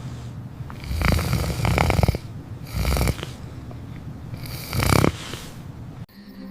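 Snoring: three rattling snores, the first and longest lasting about a second, with a couple of seconds between them. It cuts off suddenly near the end.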